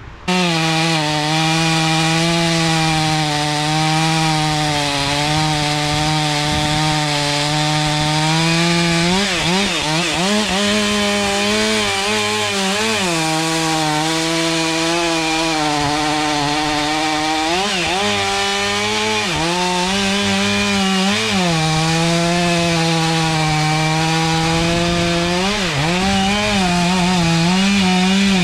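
Chainsaw running at high revs, cutting wood. It starts abruptly, and its pitch dips and wavers several times, from about nine seconds in and again later.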